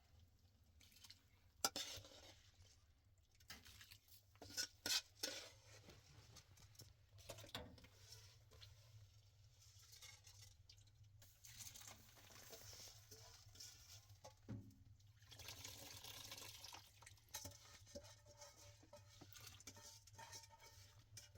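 Quiet kitchen handling sounds during cooking: a few sharp knocks and clinks of pots or utensils, then stretches of soft hissing as liquid is poured or stirred.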